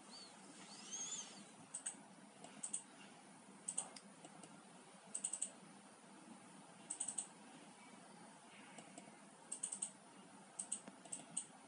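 Computer mouse clicking in quick clusters of two to four clicks, like double-clicks, roughly every one to two seconds, over a faint steady room hiss.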